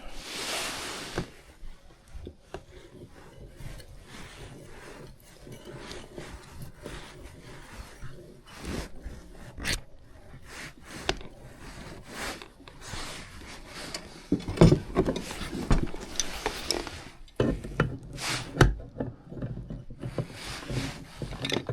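Hands and tools working on a furnace gas valve and its fittings: irregular rubbing and scraping with small clicks and knocks, and a few louder knocks around fifteen and eighteen seconds in.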